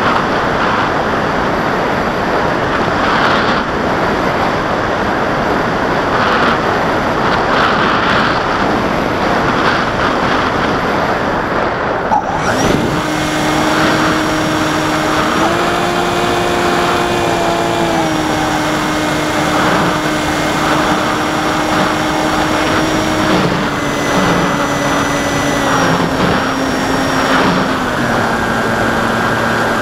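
Electric motor and propeller of an AXN Floater Jet RC plane, heard from its onboard camera in flight with wind rushing over the microphone. About twelve seconds in, the motor's whine comes through clearly as a steady tone that steps up and down in pitch a few times with the throttle.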